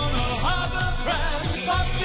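Pop music with a singing voice over a steady low beat.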